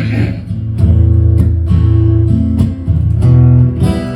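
Acoustic guitar strummed between sung lines, over steady bass notes that change pitch a few times.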